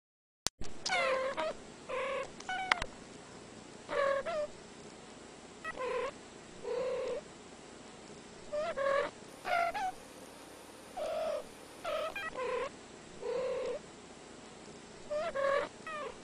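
Two domestic cats meowing at each other: about fourteen short meows, each bending in pitch, coming singly or in quick pairs with pauses between.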